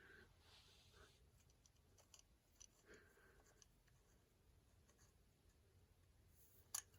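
Near silence: room tone with a few faint ticks and soft handling rustles, mostly in the first three seconds.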